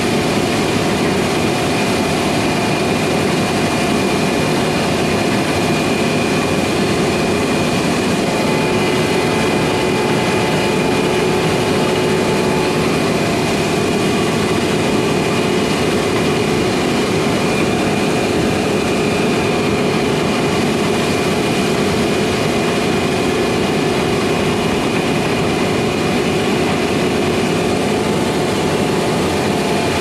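Combine harvesters running steadily while cutting wheat: engine and threshing machinery giving a continuous, even mechanical noise with a constant hum.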